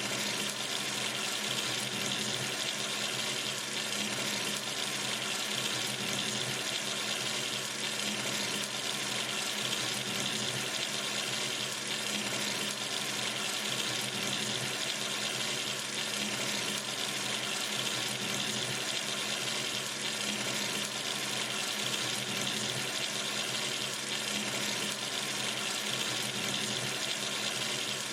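Water running steadily from a sink tap into the basin, an even hiss with no changes.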